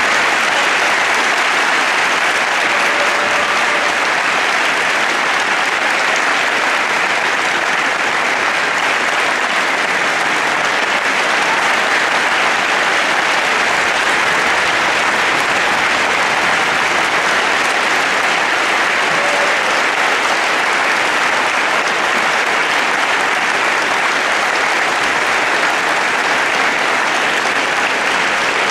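A large crowd applauding loudly and steadily, the clapping going on without a break.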